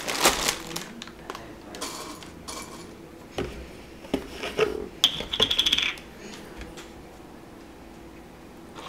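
Small hard cereal loops rattle into a ceramic bowl at the start, followed by scattered knocks and crinkles as a plastic bag and a milk carton are handled on a counter. About five seconds in comes a short run of fast clicks, then it goes quiet.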